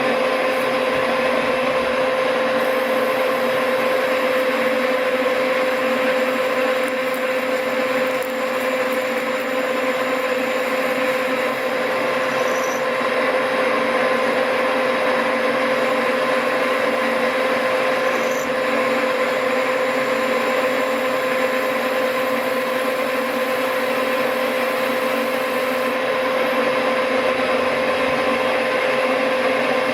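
Metal lathe running steadily, a constant whine over the machining noise.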